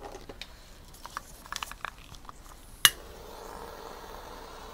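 A few small handling clicks, then one sharp click a little under three seconds in as a Scripto wind-resistant long-handled butane lighter is lit, followed by the steady faint hiss of its flame as it is played over wet paint to bring up cells.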